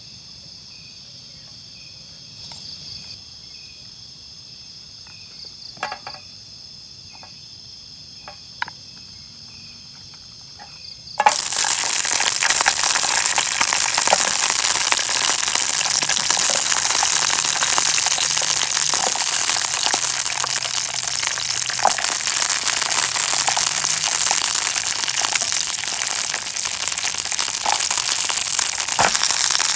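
Insects, likely crickets, trilling steadily at a high pitch, with a few soft clicks. About eleven seconds in, the sound cuts abruptly to a loud, dense crackling hiss that carries on to the end.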